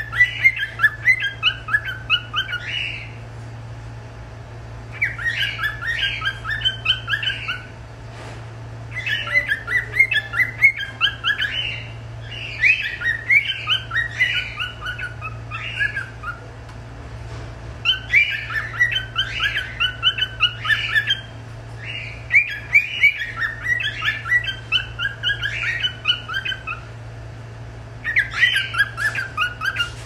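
Cockatiel singing, a fast run of chirps and warbles in bouts of a few seconds with short pauses between, over a steady low hum.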